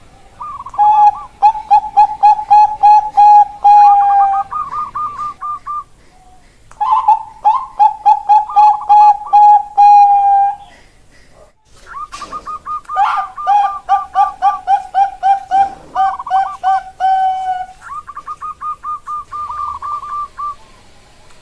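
Caged zebra dove (perkutut bangkok, the Thai-bred song strain) singing its cooing song: rapid runs of about three to four short coos a second, each phrase opening on higher notes and dropping to a steady lower run. Four phrases come with short pauses between them.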